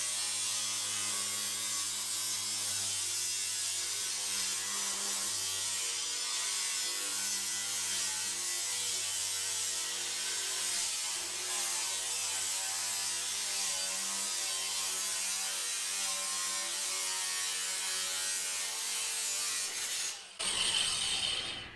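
DeWalt angle grinder with a metal cutoff wheel cutting through a corrugated steel roofing panel: a steady, harsh grinding with the motor's pitch wavering under load. Near the end the grinding breaks off, and the free-running wheel whines briefly and winds down as the cut finishes.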